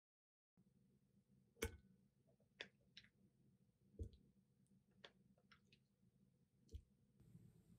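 Near silence with faint room tone, broken by about seven light, irregular clicks and taps.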